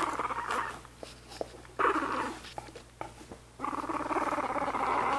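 Two-week-old Australian Labradoodle puppy making baby noises: three bouts of pulsing grunts and whimpers, the last and longest starting about three and a half seconds in.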